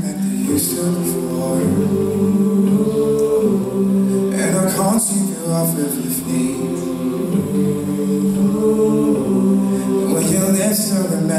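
All-male a cappella group singing close harmony into microphones, holding chords that change every second or two. A vocal percussionist adds crisp percussive sounds on top.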